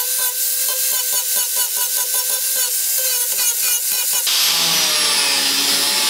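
Angle grinder running against the rusted steel lower side panel of a Toyota Coaster bus, grinding the rust back to metal with a pulsing whine. About two-thirds in the sound turns harsher and hissier, with a high whistle, as the disc bites into the metal and throws sparks.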